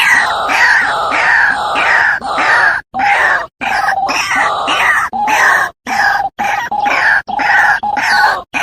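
White-breasted waterhen (ruak-ruak) calling: a fast string of repeated harsh notes, about two to three a second. The calls cut out abruptly for a moment several times.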